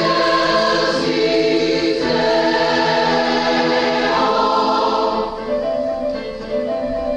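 Choir singing sacred music in sustained, held chords, growing quieter about five seconds in.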